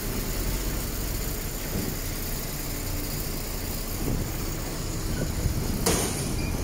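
Tractor diesel engines running steadily while a tipping trailer unloads chopped grass silage onto the pit. A short sharp knock comes near the end.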